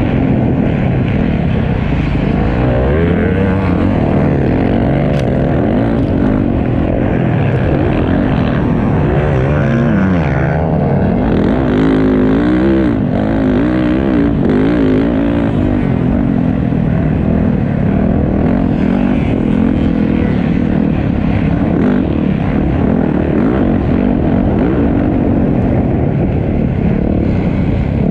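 A motocross bike's engine under hard throttle, close up from the rider's helmet camera, its pitch rising and falling as the rider opens and closes the throttle around the track.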